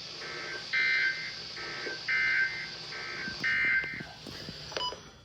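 Emergency Alert System end-of-message data bursts: three short, harsh buzzing digital bursts about a second and a half apart, signalling that the severe thunderstorm warning broadcast has ended, played over a radio.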